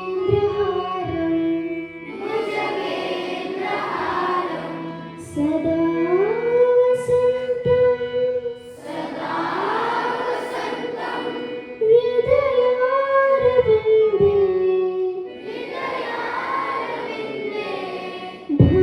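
A group of children singing a slow melody in unison, holding long notes that glide between pitches, over a faint steady low drone.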